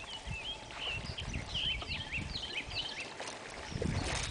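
Songbirds singing, a quick run of short rising and falling chirps, over a low rumble. Near the end there is a brief rush of noise.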